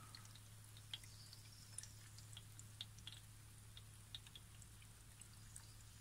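Near silence with faint, irregular drips of water from the opened drain-pump filter of an LG washing machine, drained by hand because its drain pump does not pump the water out (error OE).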